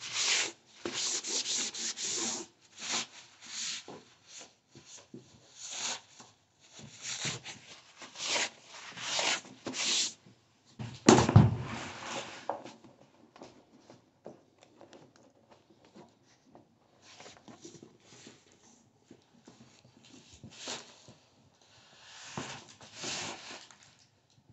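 A hand rubbing and pressing self-adhesive flexible plastic quarter-round trim down along its length, a run of rubbing strokes. A loud thump about eleven seconds in, then fewer, quieter strokes.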